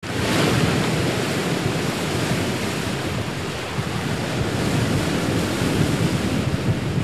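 Ocean waves and wind: a steady rushing wash with no distinct events.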